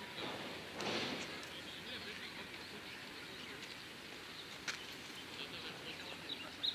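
Quiet outdoor ambience with small birds chirping, mostly near the end, and a brief whoosh of noise about a second in.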